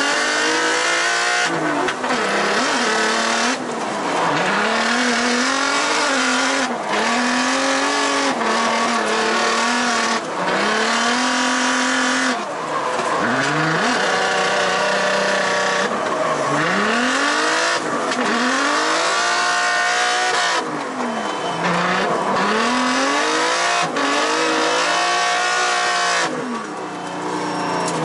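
Twin-turbo Nissan 350Z (Z33) drift car's VQ V6 engine heard from inside the cabin during a drift run. The revs climb and fall over and over, every second or two, over a constant hiss of tyre squeal.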